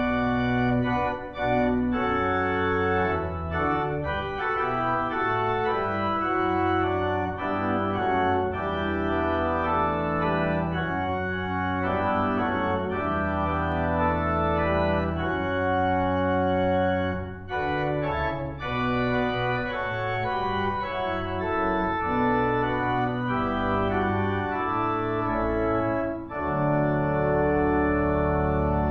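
Church organ playing full, held chords over a sustained bass line, with short breaks between phrases.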